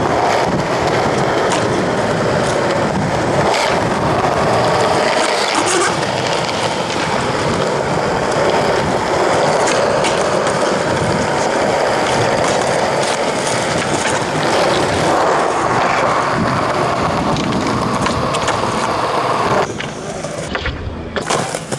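Skateboard wheels rolling steadily over smooth tiled ground, with occasional sharp clicks. Near the end the rolling drops away, leaving a few knocks.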